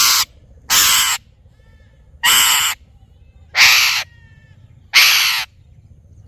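Parrot giving loud, harsh screeching squawks, about five in a row at even spacing, each about half a second long, with faint whistled chirps between them.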